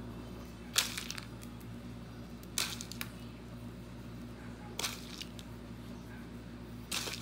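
Short crackling rattles of chopped peanuts in a plastic tub, about every two seconds, as handfuls are scooped and scattered over the filling-spread dough. A low steady hum runs underneath.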